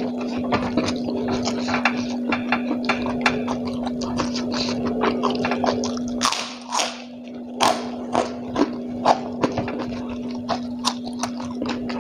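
Close-up chewing of a mouthful of rice, with many quick wet mouth clicks and smacks, over a steady low hum. A couple of breathy rushes a little past halfway.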